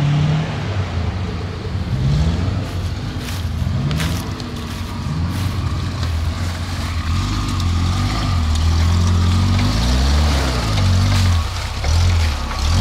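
Off-road vehicle's engine being revved, its pitch rising and falling several times as the throttle is worked, strongest about ten seconds in.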